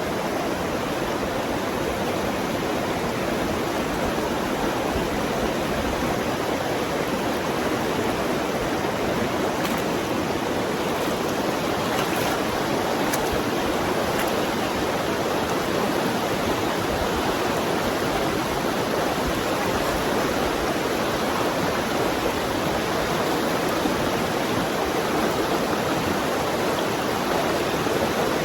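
Fast river current rushing steadily over rocks in pocket water. A few faint ticks come through near the middle.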